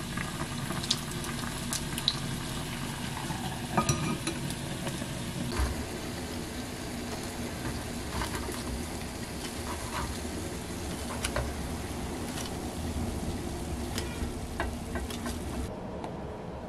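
Food sizzling in hot oil on the stove, a steady hiss with scattered sharp clicks of metal tongs and wooden chopsticks against the pans. The hiss stops near the end.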